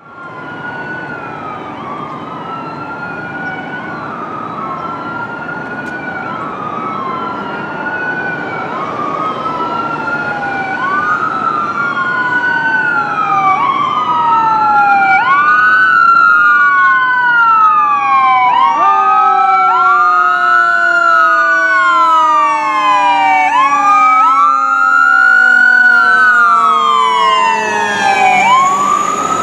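Fire engine siren wailing in repeated sweeps, each a quick rise and a long fall, growing louder as the engine approaches. From about halfway a second set of sweeps overlaps it.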